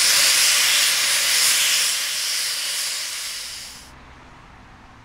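Steam locomotive's cylinder drain cocks venting steam: a loud, steady hiss that cuts off abruptly about four seconds in.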